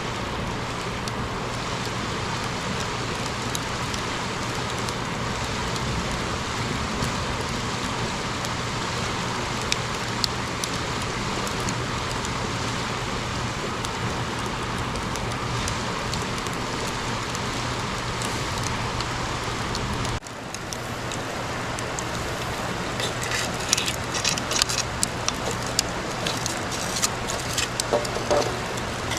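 Wood campfire burning: a steady rushing hiss, then sharp crackles and pops over the last several seconds.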